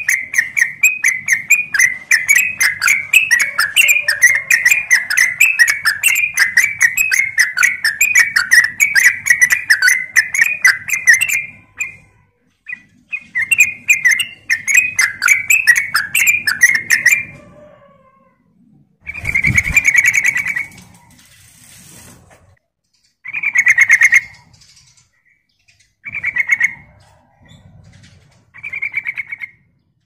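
Caged yellow-vented bulbul (trucuk) singing: a fast run of repeated chattering notes for about eleven seconds, a shorter run after a brief pause, then four short phrases with gaps between them. A low thump comes just before the first short phrase.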